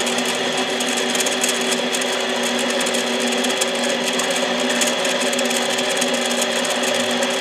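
Harbor Freight 7x10 mini lathe running steadily, spinning an aluminium chainsaw piston in its chuck fixture: an even motor and gear whine with a few constant tones.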